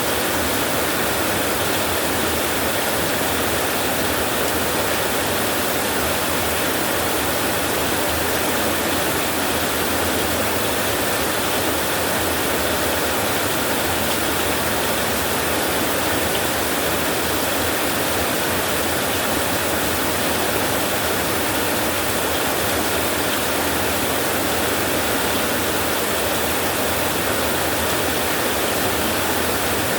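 Steady rain on a tin roof, an even hiss that does not let up.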